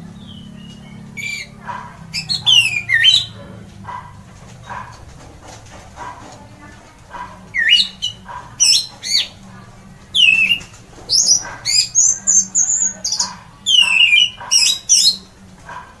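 Orange-headed thrush (anis merah) singing its loud full song, known as ngeplong. It comes in three spells of quick, sliding whistled phrases, and the longest spell fills most of the second half.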